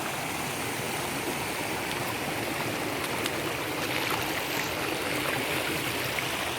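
Small creek running after rain: a steady rush of flowing water.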